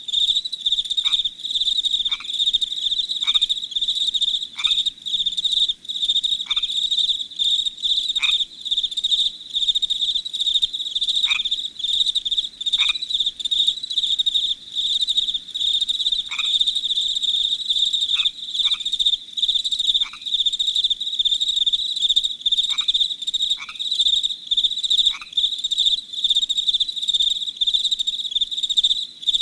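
A dense chorus of crickets chirping in a fast, steady trill, with frogs giving short falling calls every second or two.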